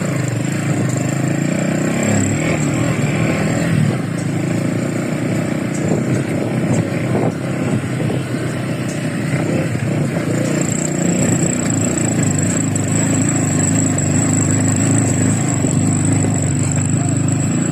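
A motor vehicle running steadily, a continuous engine and road rumble with a faint high whine above it.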